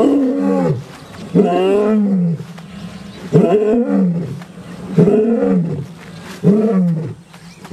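Adult male lions roaring, about five deep calls spaced roughly every second and a half: territorial roaring in answer to rival males.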